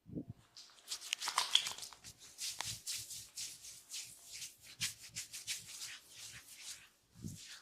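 A barber's hands rubbing and scratching through hair and over the scalp in quick repeated strokes, about three a second, as part of a head massage. A low thump comes at the start and another near the end.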